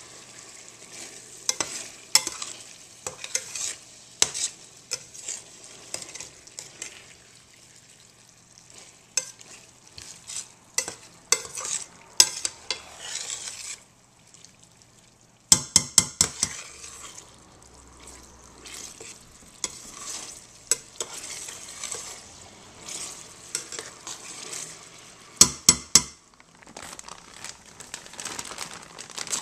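A metal spoon stirring and scraping meat simmering in a stainless steel sauté pan, over a soft sizzle, with frequent clinks of the spoon against the pan. Two bursts of loud sharp knocks, about halfway through and a few seconds before the end.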